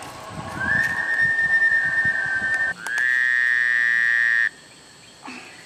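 Two long, steady, whistle-like tones: first a thin high tone lasting about two seconds, then a louder, buzzier one with many overtones that cuts off abruptly after about a second and a half. Soft low rustling runs under the first tone.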